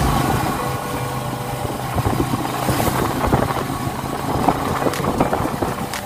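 Kawasaki motorcycle tricycle running along a road, heard from the sidecar: a steady engine hum with a busy rattle of short knocks from the sidecar body.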